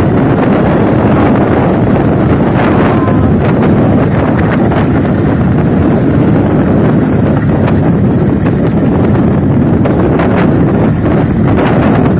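Loud wind buffeting the microphone over a motorboat's engine running steadily through big waves.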